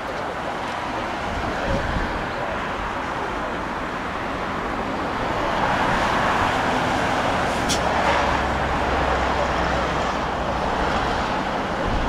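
Boeing 787 airliner's jet engines during a landing: a steady rush of engine noise that swells about halfway through as the jet comes down onto the runway and rolls toward the viewpoint.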